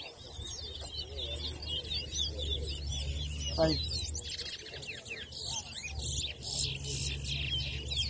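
Towa-towa seed finches singing in competition: fast, continuous runs of high chirps and warbles. A steady low rumble lies underneath.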